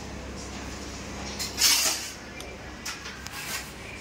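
Metal pots and utensils being handled in a kitchen: a few light knocks and one louder, short clatter about one and a half seconds in, over a steady low hum.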